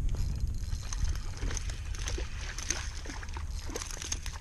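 Small splashes and sloshing of water at the side of a kayak, with scattered light clicks and taps.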